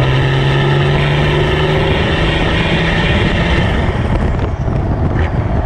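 Nissan TD42T 4.2-litre turbo-diesel straight-six running under steady load on the road, its note held at a constant pitch. About four seconds in the engine note drops away, leaving a rougher, uneven rumble.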